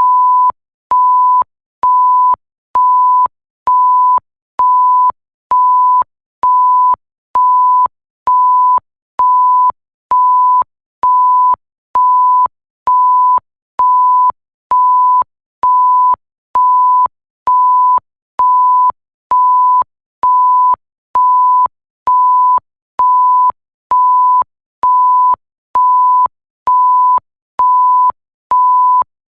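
Electronic bleep: a pure, steady tone at about 1 kHz, pulsing on and off evenly about once a second. Each beep lasts roughly half a second, with a faint click as it switches on and off.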